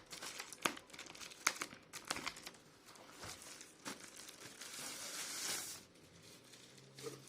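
Packaging crinkling and rustling as the keyboard's wrist rest is unwrapped, with scattered sharp crackles and then a longer rustle about four to six seconds in.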